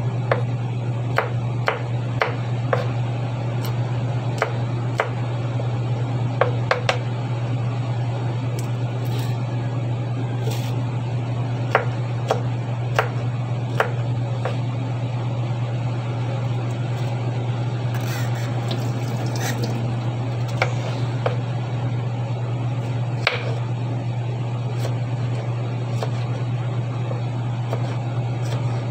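Kitchen knife tapping and cutting garlic cloves on a wooden cutting board, sharp irregular clicks, more frequent in the first half, over a steady low hum.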